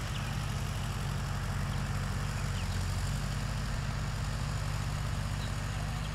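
1955 Ford 650 tractor's four-cylinder engine running steadily, an even low drone.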